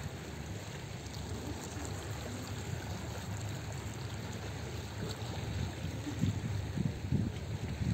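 Steady rushing of wind and sea water, with low gusts of wind buffeting the microphone in the later part.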